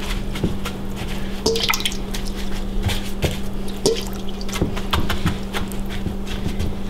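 Watery leftover egg-and-cheese filling dripping and splatting as it is flicked by hand from a metal bowl onto layered filo dough, with soft wet pats of a hand on the pastry, in short irregular splats. A steady low hum runs underneath.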